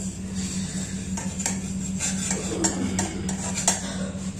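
A steel spatula scraping and tapping against a kadhai (wok) while stirring dry rolled oats as they roast, with irregular scrapes and clinks over a steady low hum.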